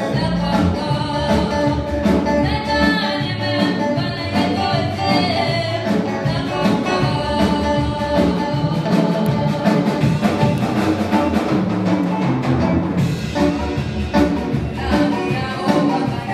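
Church choir singing a gospel song in harmony, backed by a band with a steady drum beat.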